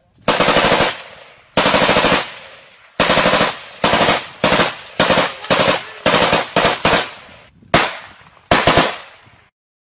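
Machine gun firing about a dozen bursts of automatic fire. The first three bursts are longer, the rest short and quick, and the firing stops shortly before the end.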